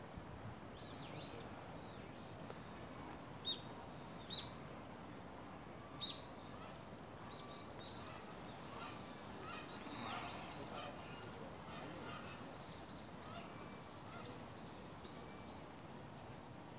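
Birds chirping off and on, many short high notes, with three louder, sharp notes in the first six seconds, over a faint steady background.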